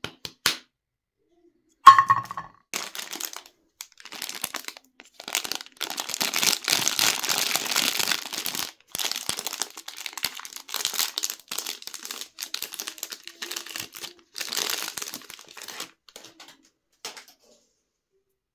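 Plastic wrapper of a Magnum ice cream bar being torn open and crinkled by hand, crackling and tearing for most of the time and loudest in the middle. A sharp knock comes about two seconds in.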